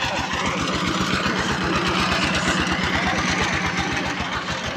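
A motor vehicle's engine runs close by with a steady, rapid low chugging.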